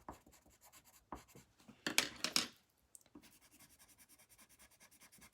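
Coloured pencil scratching on paper in short, quick strokes as fur lines are drawn. About two seconds in there is a louder scraping rustle lasting about half a second, then faint rapid strokes resume.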